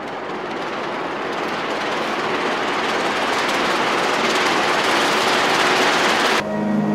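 Large paper cone fitted over a loudspeaker woofer, rattling and rustling as the driver shakes it with very low frequencies that the paper makes audible. The rushing noise builds steadily louder, then cuts off suddenly near the end and gives way to a steady low hum with tones above it.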